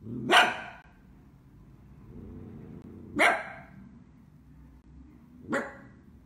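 Dachshund barking: three single barks, a couple of seconds apart.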